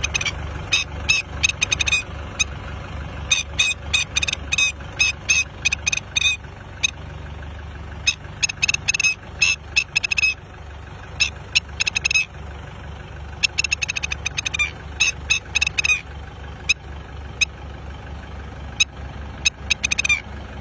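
Tractor engine running with a steady low pulse, while birds call over it in rapid runs of short, sharp, high notes that come in bursts every second or two.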